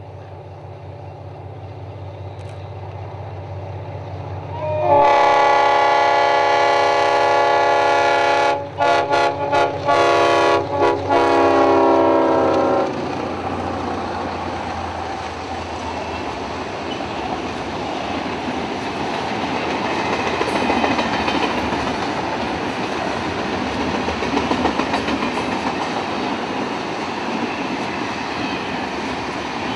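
A freight A class diesel-electric locomotive with an EMD V12 turbo engine approaches, its engine rumble rising, and sounds its horn about five seconds in: one long blast, then several short blasts, stopping about thirteen seconds in. The container wagons then roll past with a steady rumble and clatter of wheels on rail.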